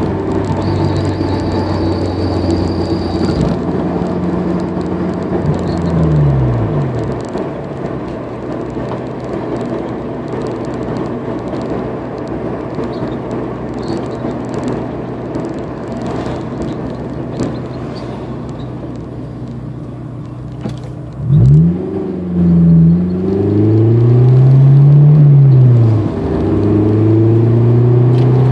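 Honda S2000's four-cylinder engine running: steady at first, its revs dropping away about six seconds in, then a lower steady hum, and near the end the revs rise and fall several times, loudest there. Faint scattered clicks sound over it.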